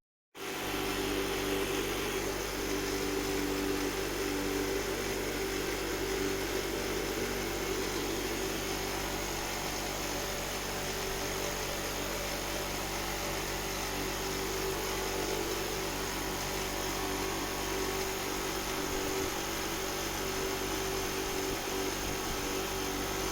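A small power tool running steadily, with a constant hum under an even noise, slightly louder for the first few seconds.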